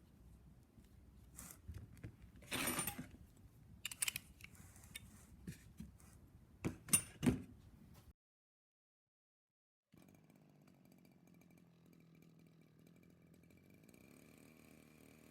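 Irregular clicks, knocks and rattles of metal parts or tools being handled, with a few louder short bursts. After a brief dead gap comes a faint steady hum.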